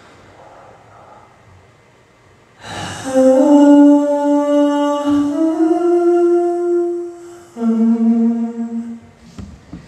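A young man singing a cappella, with no backing track. After a quiet start, about three seconds in, he holds a few long notes: a step up through the first phrase, then a lower note after a short breath.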